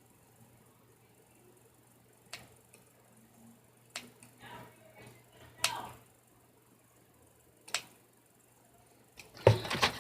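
A few sharp scissor snips, cutting the mesh net off a squishy toy, with soft rustling between them. A louder, longer burst of noise comes near the end.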